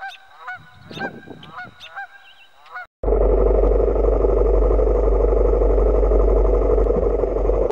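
Canada geese honking in alarm, a quick run of short repeated honks. About three seconds in this cuts to the loud, steady running of a Honda XR600's single-cylinder four-stroke engine at idle, heard through the bike-mounted camera.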